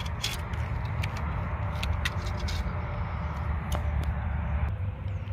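Steady low rumble of wind buffeting a phone microphone, with a few faint clicks.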